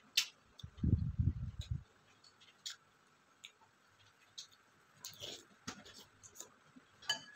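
Eating sounds: a metal spoon clicking now and then against a ceramic plate and bowl, with mouth sounds of chewing between.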